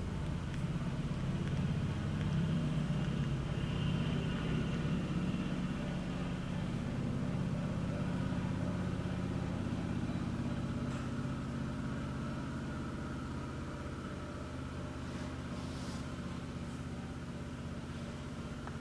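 Steady low rumble of a motor vehicle's engine running, easing off slightly in the second half.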